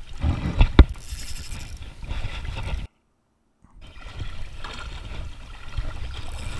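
Water sloshing around a wading angler with wind rumble on the microphone, and two sharp knocks from handling the rod and camera under a second in. The sound drops out completely for under a second midway.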